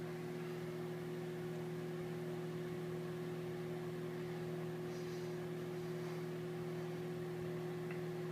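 Microwave oven running, a steady electrical hum from its transformer and fan.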